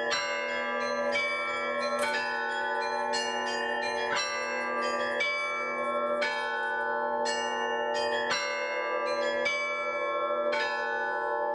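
Russian-style church bell ringing (zvon): several bells of different sizes rung together, the small bells struck in a quick, steady pattern over the long ringing tones of the larger bells.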